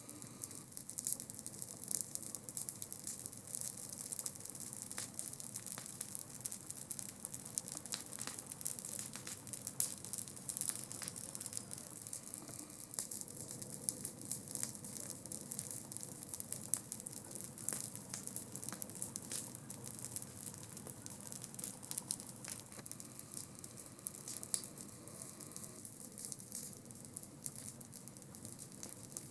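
Campfire burning, crackling and hissing with many sharp irregular pops.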